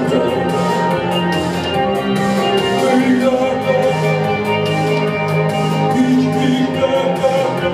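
Dark-wave band playing live: post-punk style electric guitar over a steady beat, loud and continuous.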